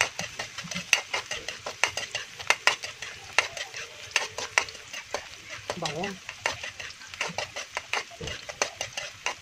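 Metal spatula stirring chopped onion and garlic frying in oil in a wok. Sharp, irregular clinks of metal on metal run over a steady sizzle.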